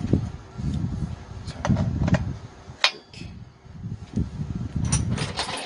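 Hands fitting the carburetor back onto a two-stroke brush cutter engine: low bumping and rubbing of parts in short bursts, a sharp metal click about three seconds in and a few more clicks near the end.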